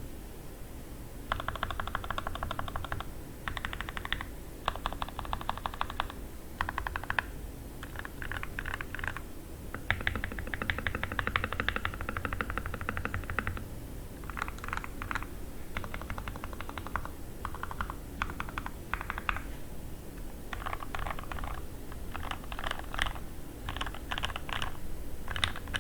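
Fast typing on an NK65 Entry Edition mechanical keyboard with lubed Alpaca V2 linear switches on an aluminium plate and OEM transparent keycaps: runs of rapid keystrokes broken by short pauses between words.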